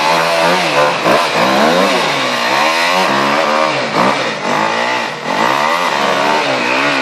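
Dirt bike engine revved hard in repeated bursts, its pitch rising and falling about once a second, as the bike is pushed and driven out of a deep mud rut.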